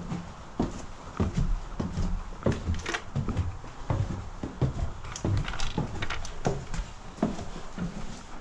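Footsteps going down a staircase: a run of irregular thuds and knocks, with a few sharper clicks.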